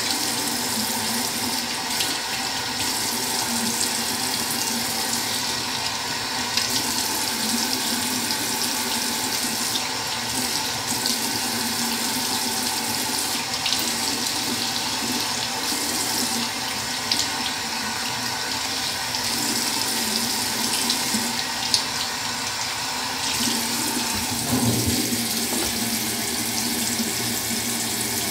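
Bathroom tap left running into a sink, a steady rush of water. About four seconds before the end the water sound briefly turns lower and splashier.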